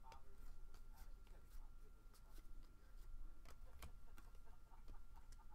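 Trading cards being flipped through by hand: scattered soft clicks and slides of card stock as the cards are moved one after another.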